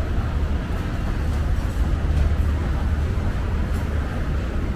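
Steady low rumble of ambient background noise, with a few faint light clicks.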